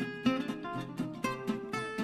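Background music: acoustic guitar plucked and strummed, notes struck in a steady rhythm.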